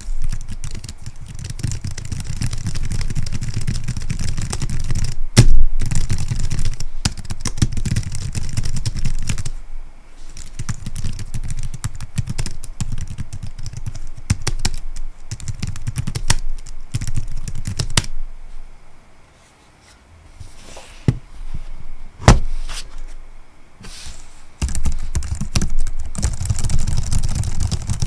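Typing on the HUAWEI Ultrathin Keyboard, a low-profile scissor-switch (pantograph) keyboard: quick runs of soft, mild keystrokes with a few louder single key strikes. The typing stops briefly a little past the middle, then starts again.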